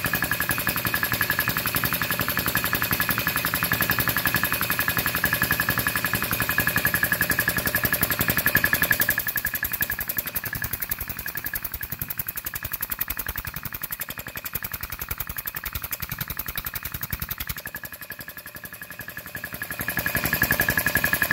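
Belt-driven conversion of an oilless Ironton air compressor running. The pump makes a rapid pitter-patter clatter over a steady high whine. It gets quieter about nine seconds in and builds up again near the end.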